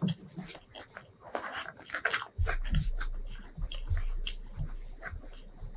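Close-miked chewing with irregular crunches and wet mouth clicks, along with fingers gathering and pressing curry-coated food on a wooden board.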